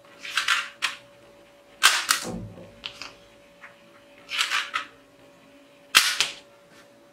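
Toy plastic rifle shooting suction-cup darts, twice: a dart is scraped into the barrel, then comes a sharp pop of the spring-loaded shot. The first shot is about two seconds in and the second near the end.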